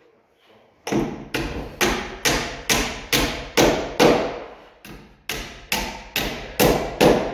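A hand hammer driving nails into wood, about two steady blows a second, starting about a second in with a short pause about four seconds in.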